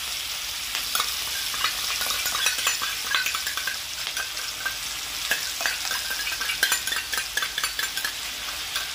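Diced canned ham and green peas sizzling in hot oil with freshly added sauces, while a metal spatula stirs them, scraping and clicking against the pan many times over a steady hiss.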